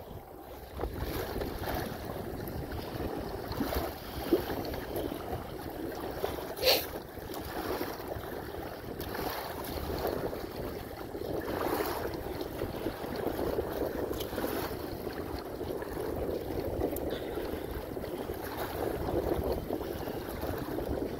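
Choppy, wind-driven water splashing against a kayak hull underway, with wind buffeting the microphone. One sharper hit stands out about seven seconds in.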